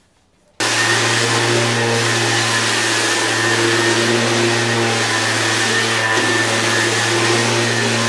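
Corded electric palm sander running steadily against a plastered wall, a loud hum with a hiss of abrasive on the dried skim coat. It starts abruptly about half a second in.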